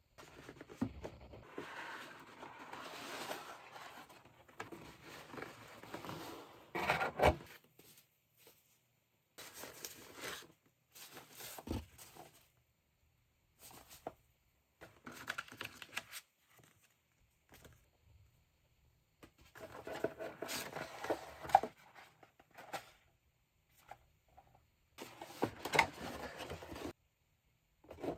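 Keyboard packaging being opened and handled: bursts of rustling, scraping and tearing with pauses between them, and a few sharp clicks or knocks, the loudest about seven seconds in and about twenty seconds in.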